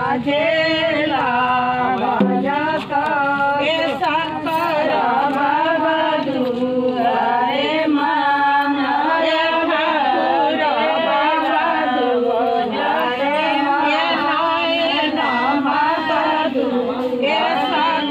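A group of women singing a traditional ceremonial folk song together, unaccompanied, in long held phrases.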